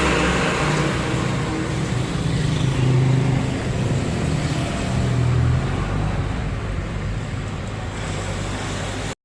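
A motor vehicle's engine running steadily with road noise, its low hum shifting slowly in pitch.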